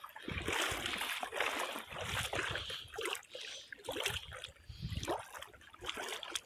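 A person wading through shallow pond water in clothes, the water sloshing and splashing unevenly with each stride.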